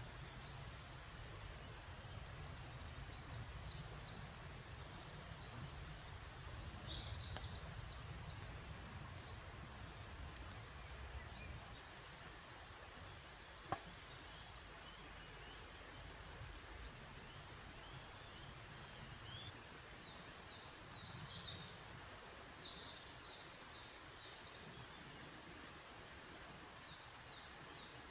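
Quiet woodland ambience: small birds singing short chirping phrases every few seconds over a faint low rumble that dies away about halfway through. Two sharp clicks midway.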